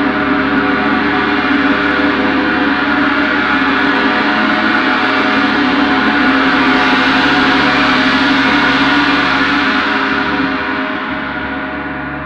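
Gong played in a gong bath: a loud, continuous swell of many overtones held together, with no single strike standing out. Near the end the high overtones die away and the sound softens.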